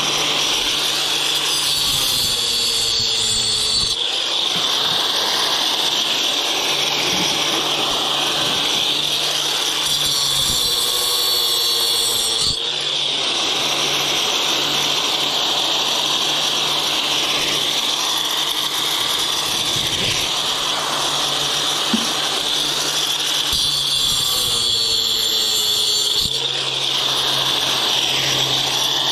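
A power tool running steadily and continuously, cutting apart scrap copper pieces, its note dipping briefly a few times.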